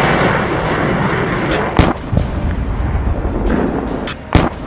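Combat sounds: a loud, continuous rumbling roar broken by two sharp bangs, one nearly two seconds in and one just before the end, with fainter thuds between them.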